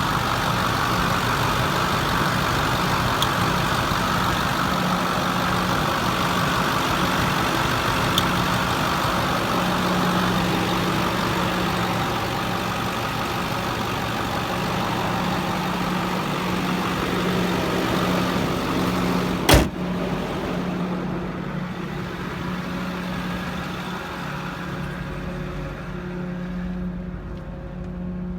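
2010 Ford F-550's 6.4-litre Power Stroke diesel V8 idling steadily. One sharp bang comes about twenty seconds in, after which the engine sounds duller.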